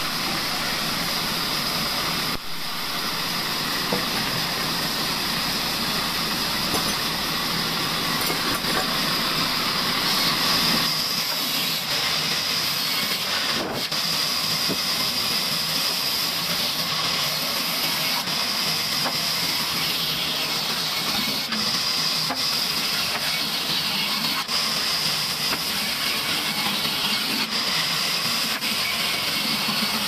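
Large sawmill band saw running and cutting lengthwise through a wooden plank: a steady, even whir with a high whine over it.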